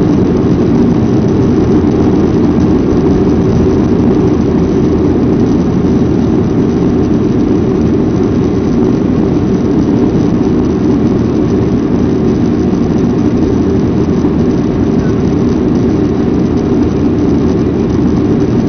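Passenger aircraft's engines and rushing air heard inside the cabin during the climb after takeoff: a steady, even noise, strongest in the low range, that does not change.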